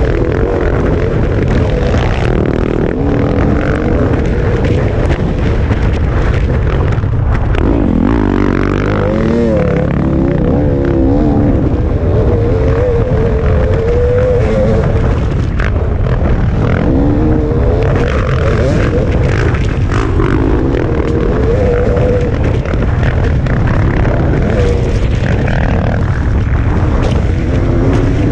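Dirt bike engine running hard under load, its pitch rising and falling repeatedly as the throttle is opened and closed, with a steady rush of wind noise underneath.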